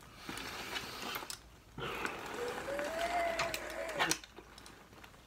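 Exhaled breaths blown through the mouthpiece into a rebreather's breathing loop to pressurise it for a positive-pressure leak test: two long breaths, the second with a faint whistling note that rises and then falls. A sharp click comes about four seconds in.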